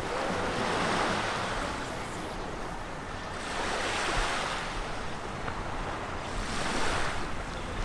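Small waves washing onto a sandy beach, the surf swelling and fading about every three seconds.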